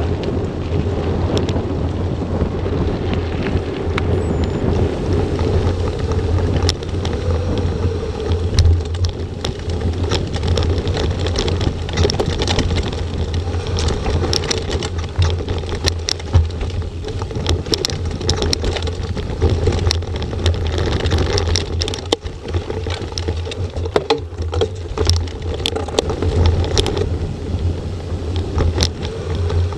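Mountain bike ridden fast over a gravel track and then a rough dirt forest trail: steady wind buffeting on the microphone and tyre noise, with frequent sharp clicks and rattles from the bike over the rough ground from about twelve seconds in.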